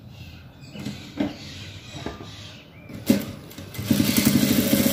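Jack industrial sewing machine stitching a seam at speed, starting about four seconds in with a fast, even stitching rhythm. Before it, a few light knocks of fabric being handled and a sharp clack just after three seconds.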